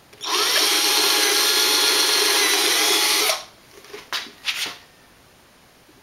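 Cordless drill running at speed as it bores a hole through a plywood shelf, a steady whine for about three seconds that stops abruptly, followed by two brief, quieter noises.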